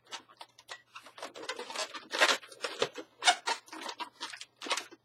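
Latex twisting balloons rubbing and squeaking against each other as a black 160 balloon is worked around a yellow balloon body, in short irregular bursts.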